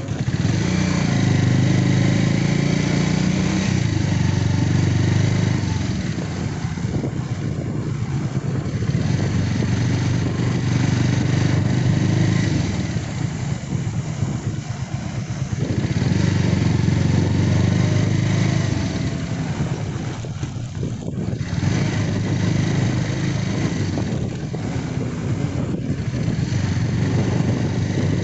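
Motorcycle engine running under way, its note swelling and easing several times as the throttle opens and closes.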